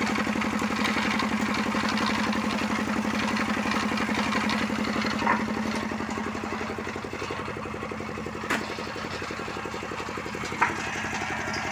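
Motorcycle engine, rigged to drive a wood-cutting machine, idling steadily, with three short sharp clicks along the way.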